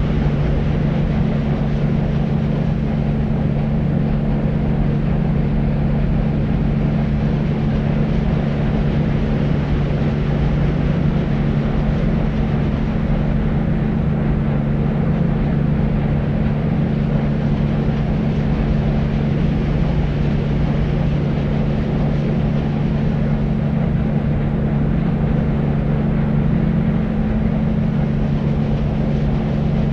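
Deep white noise for sleep: a steady, low-pitched hiss with a constant low hum under it, unchanging throughout.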